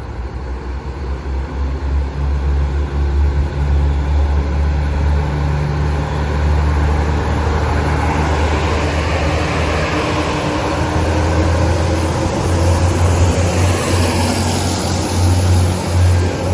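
Northern Ireland Railways diesel multiple unit running at close range, its engines giving a steady low drone. A rushing noise of the moving train builds over the second half and is loudest near the end.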